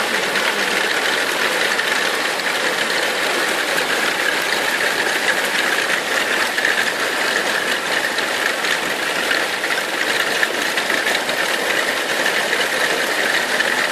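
Large hailstones pelting down in a thunderstorm: a dense, steady clatter of countless small impacts on roofs, a gazebo canopy and paving.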